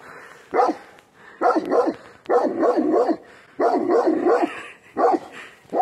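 Large white dog barking at passers-by, in runs of several quick barks broken by short gaps, with single barks near the start and end.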